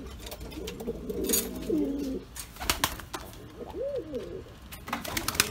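Buchón pouter pigeons cooing, a run of low wavering coos for the first two seconds and one more short coo near four seconds. Sharp clicks and rattles from the aluminium loft cage door being unlatched and opened come about two and a half seconds in, with more clicks near the end.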